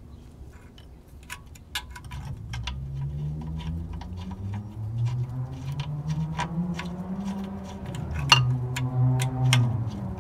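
Small metal clicks and taps of a car's lower ball joint and its bolts being handled and fitted by hand into the steering knuckle, one louder click a little past the middle. Under them a low engine-like hum slowly rises in pitch, then drops near the end.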